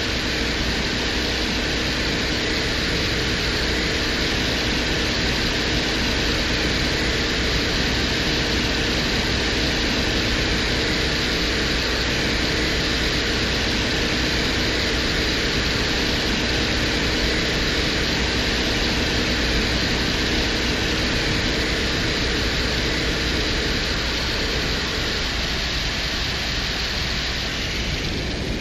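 Venera 14 lander's microphone recording from the surface of Venus: a steady static-like hiss with a low hum beneath, taken to be instrument noise mixed with the Venusian wind. A few faint steady tones sit within it and fade out near the end.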